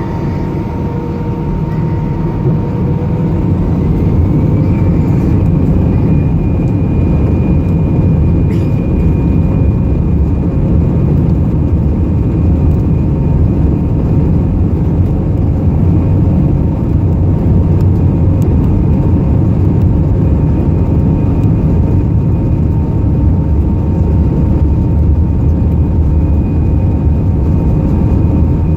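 Airbus A319's twin jet engines heard from inside the cabin at takeoff, rising in pitch and loudness over the first few seconds as they spool up, then running steadily with a deep rumble under a steady whine.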